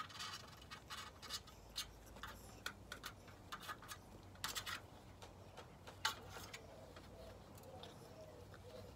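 Metal grooming comb drawn through a Bichon Frise's curly, brushed-out coat: faint, short scratchy strokes at an uneven pace, several a second. This is a final combing pass to find any knots left after brushing.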